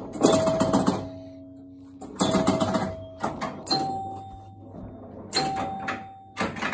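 D. Gottlieb World Series electromechanical pinball machine in play: sharp mechanical clacks, each followed by a score chime ringing and fading. There are about five strikes, at different pitches.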